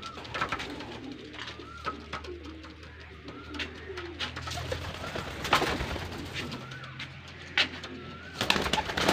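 Chikas high-flying pigeons cooing repeatedly, with a few brief sharp noises about five and a half, seven and a half and eight and a half seconds in.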